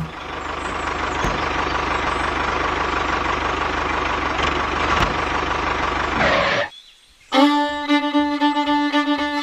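A toy tractor's motor runs steadily as it drives, with a constant whine over a low even pulsing, and cuts off suddenly after about six and a half seconds. After a short silence, fiddle music plays.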